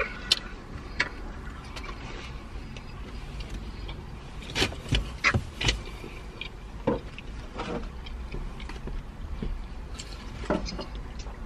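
Eating and food-packaging noises: fried chicken being bitten and chewed and a cardboard food tray being handled, heard as a few sharp crunches and rustles, with the loudest cluster about five seconds in. A steady low rumble sits underneath.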